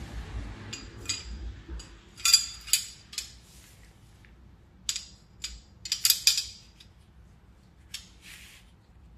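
Metal parts and hand tools clinking and scraping in irregular bursts, loudest about two seconds in and again around six seconds.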